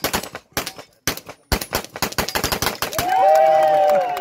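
Rapid pistol fire from two IPSC competitors shooting at once at steel targets, several shots a second. About three seconds in, the shooting stops and a loud, long, high-pitched shout from a spectator takes over.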